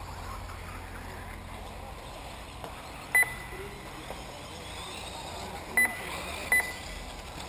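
Three short, sharp electronic beeps at one high pitch, about three seconds in, near six seconds and again just after, over a steady background hum: the lap-counting beeper of a race timing system, sounding as 1/8-scale electric RC buggies cross the timing line.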